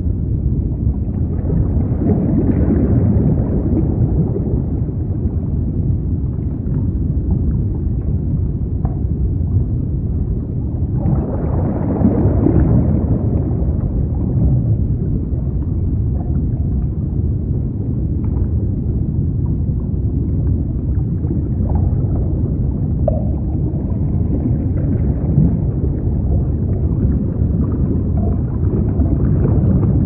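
Underwater ocean ambience: a dense, low rumble and wash of water with gurgling. It swells louder about two seconds in and again around the twelve-second mark, and a few faint, brief tones show up here and there.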